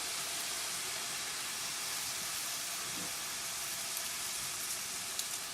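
Chopped vegetables frying in olive oil in a pan, a steady sizzle with soy sauce just added, with a few faint crackles near the end.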